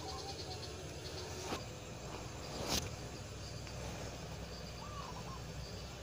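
Short bird chirps and a fast insect ticking over a steady low rumble, with two sharp clicks, the louder one a little before the middle.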